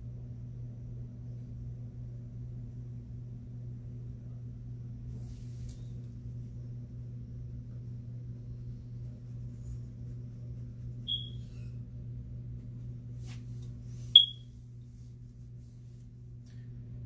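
Steady low electrical hum, with two short, high-pitched electronic chirps about three seconds apart near the end, the second much louder.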